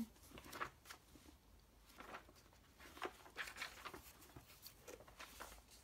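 Pages of an old Pears Cyclopedia, fragile with age, being turned and brushed by hand: a series of faint, soft paper rustles at irregular intervals.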